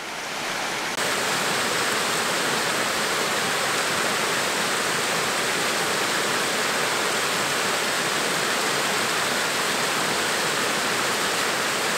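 Water rushing steadily over the low, stepped sandstone cascades of Archangel Falls, an even unbroken rush; it steps up a little about a second in.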